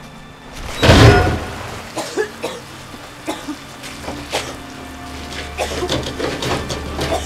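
Rain falling steadily. A loud rushing swell peaks about a second in, followed by scattered short knocks, and a low steady hum comes in partway through.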